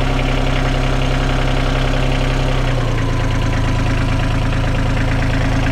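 Isuzu 3LD1 three-cylinder diesel engine idling steadily just after a cold start, not yet at operating temperature. Its idle speed settles slightly lower about halfway through.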